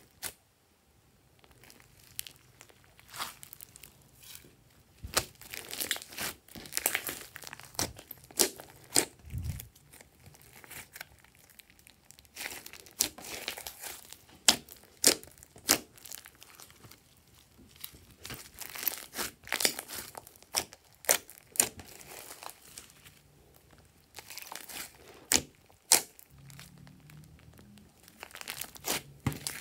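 Hands kneading and stretching a large mass of mint-green slime with small beads mixed in, giving irregular sharp sticky pops and crackles as it is pressed and pulled apart. The pops come in bunches with quieter squishing between them.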